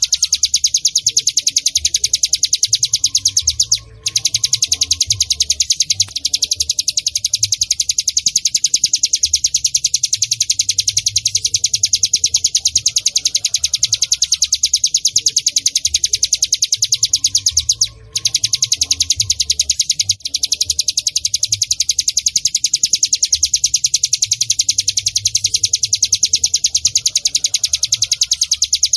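Ciblek gunung (cigun), a mountain prinia, singing a fast, unbroken, high-pitched rattling trill of rapid repeated notes. It breaks off briefly twice, about 4 and 18 seconds in.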